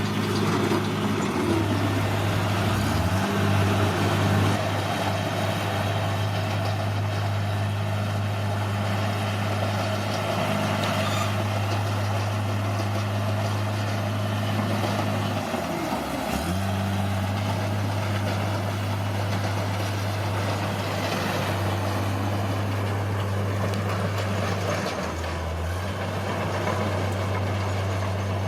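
Bulldozer's diesel engine running steadily at work, its pitch dipping briefly about three seconds in and again around the middle.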